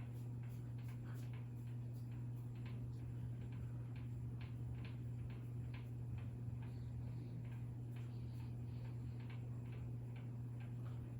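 52-inch ceiling fan running with a steady motor hum and a faint ticking squeak repeating about twice a second; the fan is not wobbling, so the squeak comes from the fan itself as it turns.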